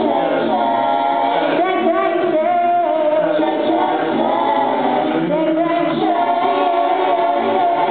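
A mixed group of young singers singing in harmony through handheld microphones, female voices on top with male voices beneath, several held notes shifting pitch together.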